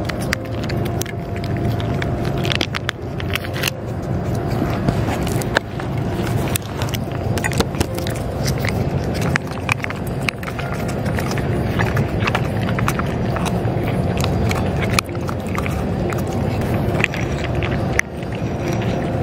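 Cats chewing and licking wet food from a metal dish, heard close up as many small, irregular wet clicks over a steady low rumble.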